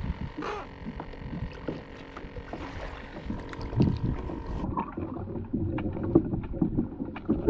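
Water splashing and lapping against a kayak hull as a redfish is lowered back into the water, with wind on the microphone and a few knocks. About two-thirds of the way through the sound turns muffled, as heard from a camera under the water.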